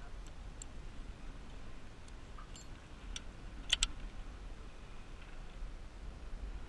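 Low wind rumble on the microphone high up a ship's mast, with a few short, sharp clicks and clinks of metal rigging hardware and climbing gear. The loudest is a quick double click a little past halfway.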